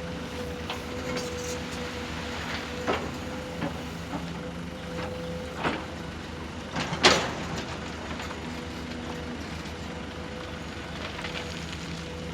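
Radio-controlled model excavator and dump truck at work: a steady motor hum with scattered knocks and clatters, the loudest a sharp knock about seven seconds in.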